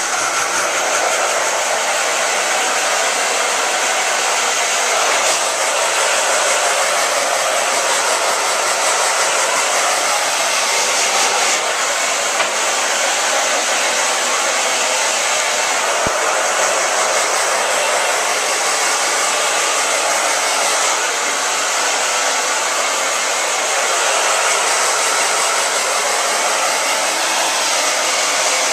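Handheld hair dryer blowing steadily, a constant rushing whoosh of air and fan, drying a wet dog's coat.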